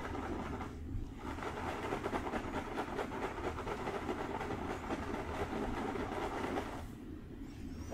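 Fingertips scratching and rubbing through hair, a dense crackling rustle that eases off briefly about a second in and again near the end.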